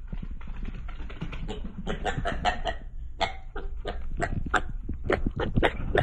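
Small pig grunting in a quick run of short grunts, about two or three a second, with fainter ticks before the grunts start.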